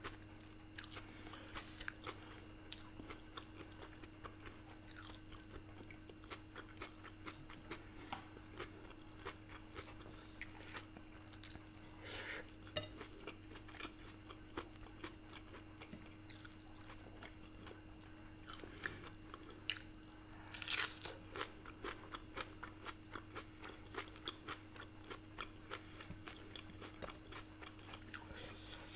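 Close-miked chewing by a person eating by hand: many small wet mouth clicks and smacks, with louder bites about 12 and 21 seconds in.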